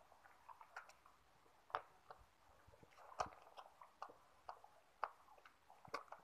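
Puppies suckling at their mother dog's teats: faint, irregular wet smacking and clicking, with a few sharper smacks standing out.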